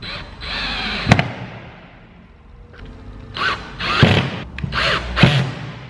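Cordless drill-driver driving screws into a wooden panel: one run of about a second that ends in a sharp click, then after a pause four short bursts of the motor, each rising and falling in pitch.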